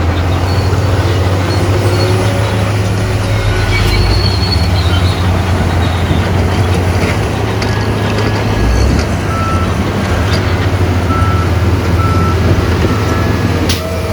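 Heavy diesel engine of earthmoving machinery, a dump truck or bulldozer, running steadily with a deep hum. In the last few seconds a reversing alarm beeps about once a second.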